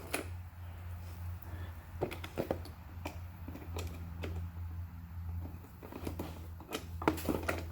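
Scattered small clicks and ticks of a hand screwdriver backing out the two Phillips screws that hold a power window switch in a plastic car door panel, with a low steady hum underneath.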